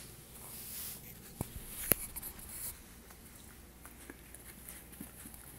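Faint rustling and scratching close to the microphone, with two sharp clicks about half a second apart, the second one the loudest.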